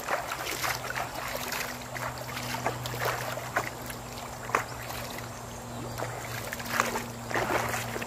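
River water splashing and sloshing in irregular bursts, over a steady low hum.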